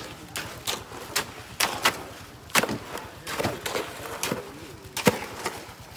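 Shovels and hoes striking and scraping on gravel and wet concrete: an irregular run of sharp knocks, the loudest about five seconds in.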